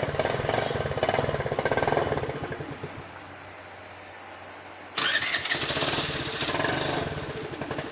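KTM Duke motorcycle engine running with rapid firing pulses. It drops back about three seconds in, then comes in again abruptly about five seconds in. A steady high whine sits over it throughout.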